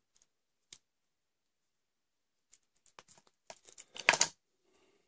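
Handling sounds of a small pocketknife and paracord: a lone light click, then scattered clicks and rustles, with a short, louder scratchy rustle about four seconds in.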